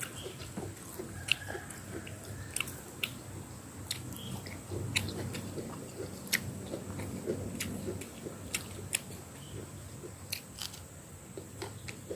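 A person chewing food close to the microphone, with frequent short, sharp wet mouth clicks at irregular intervals.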